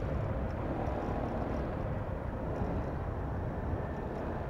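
Motorcycle under way: a steady mix of engine and wind noise, with tyre hiss from the wet paving-block road.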